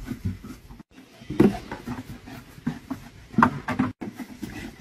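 Scattered knocks and rustles: a plastic bucket stuck over a German Shepherd's head, bumping and scraping as the dog runs about with it.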